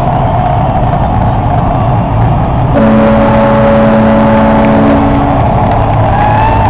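Dense crowd of parade spectators cheering and shouting loudly. About three seconds in, a horn sounds a steady chord for about two and a half seconds. Near the end there are rising whoops or whistles.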